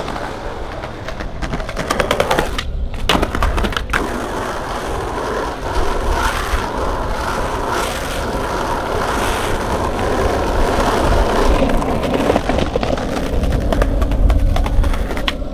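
Skateboard wheels rolling over street asphalt, a steady rolling rumble, with a few sharp clacks of the boards in the first four seconds.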